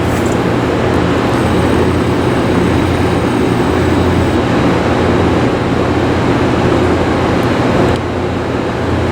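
Steady, loud rumbling noise with a low hum underneath, easing slightly near the end.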